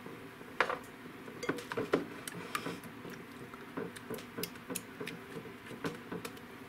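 Whisk beating a liquid mixture of eggs, cream and maple syrup in a bowl, with irregular clicks and taps of the whisk against the bowl's sides.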